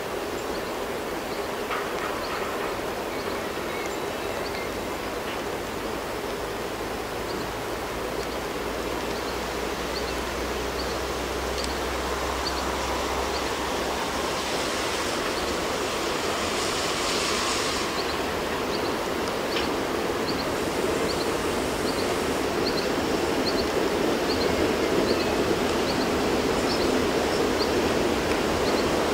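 Steady hiss of heavy rain, with the rumble of an SBB Re 10/10 locomotive pair (an Re 4/4 II coupled with an Re 6/6) hauling a freight train uphill, growing louder as it approaches.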